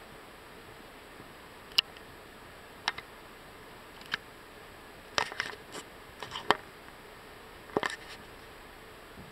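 Short sharp clicks and taps from a Cane Corso rolling and pawing over a small fish on a dock: single clicks a second or so apart, then a quick cluster in the middle and another near the end, over a steady hiss.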